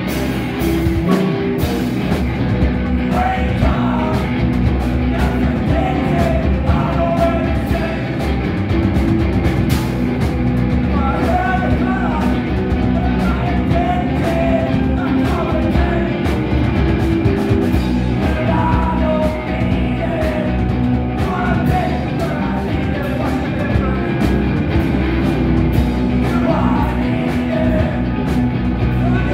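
A live rock band playing loud: electric guitars and drum kit, with sung lead vocals coming in in phrases.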